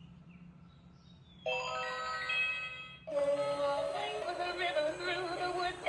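Electronic music with a synthetic-sounding voice: low for over a second, then a held chord, then a warbling melody from about three seconds in.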